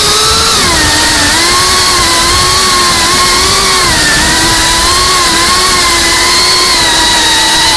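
GEPRC Cinelog 35 FPV quadcopter's motors and propellers whining loudly, the pitch dipping and rising as the throttle changes.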